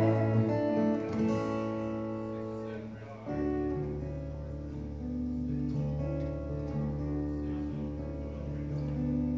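Acoustic guitar playing slow, held chords in an instrumental passage of a song, with a deep sustained bass tone coming in about three seconds in.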